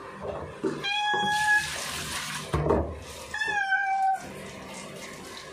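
A wet Siamese cat meowing twice in long, drawn-out cries of protest while being held down for a bath in a sink. The second meow sags slightly in pitch. Between the two cries there is a short hiss and a dull bump.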